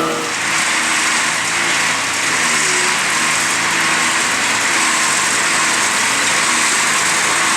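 Farm machinery running steadily: an engine note under a loud, even hiss.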